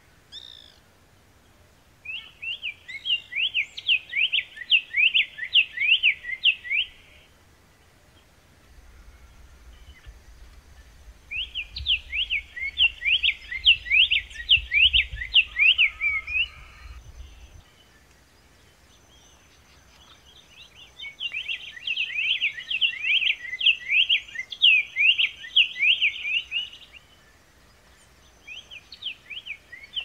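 Black-faced tanager (Schistochlamys melanopis) singing: three bouts of several seconds each, made of rapid strings of quick sweeping notes, with a fourth bout starting near the end.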